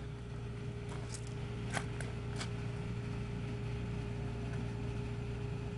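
Small spark-ignition engine on a GEET fuel reactor running steadily: a constant low hum with a steady whine over it, and a few light clicks about one to two and a half seconds in.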